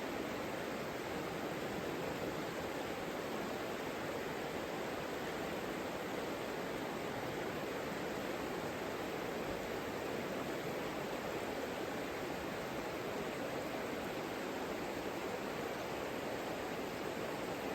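The Savica river flowing: a steady, even rush of water with no single splash or other sound standing out.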